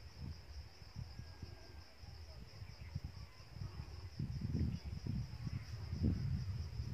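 Insects trilling steadily at a high pitch. Low thumps and rumble from someone walking with the phone grow stronger in the second half.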